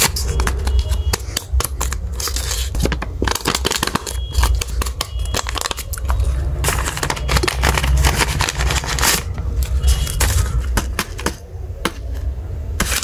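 Paper rustling and crinkling as a hand-made paper blind bag is opened and folded paper slips are pulled out and unfolded, in many quick crackles, over a steady low hum.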